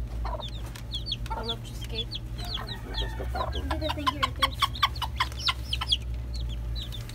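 Baby chicks peeping in short, high, falling chirps, with the mother hen clucking. About four seconds in the hen gives a quick run of clucks, her food call to the chicks as she pecks at a roach.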